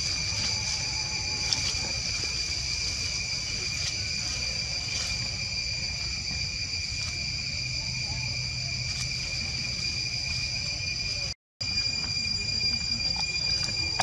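Insects droning steadily in a constant high-pitched chorus, with a low rumble underneath. The sound cuts out completely for a moment about eleven seconds in, then resumes unchanged.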